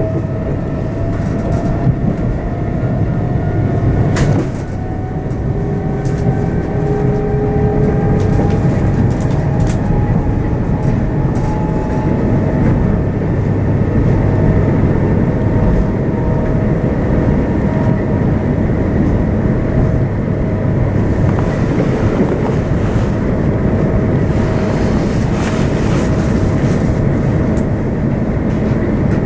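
c2c electric train running and picking up speed: a motor whine rises in pitch over the first ten seconds or so and then holds steady, over a steady rumble of wheels on the rails, with scattered clicks.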